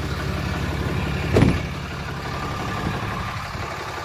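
Sterling tow truck's engine idling steadily, with one heavy thump about a second and a half in.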